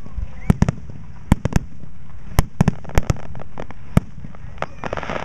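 Aerial fireworks shells bursting in quick, irregular succession, about three sharp bangs a second over a continuous low rumble.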